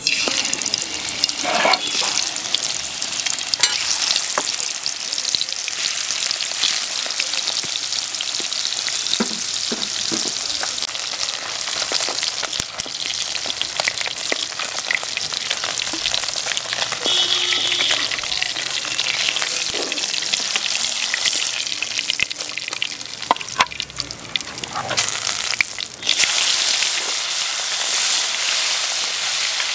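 Spice-coated climbing perch (koi fish) sizzling and spitting in hot oil in an iron karahi. The sizzle starts suddenly as the first fish goes into the oil, with scattered crackles and occasional metal spatula scrapes, and it is louder near the end.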